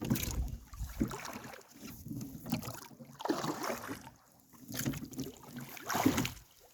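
Water swishing around a small boat on a lake, coming in swells about once a second.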